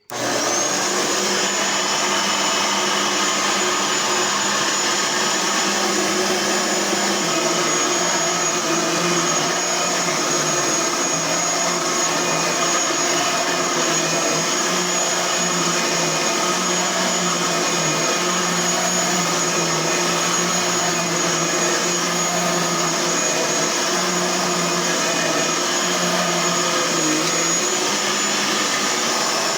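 Blue Bissell 10-amp vacuum cleaner switched on and running steadily, its high motor whine climbing to full speed in the first second.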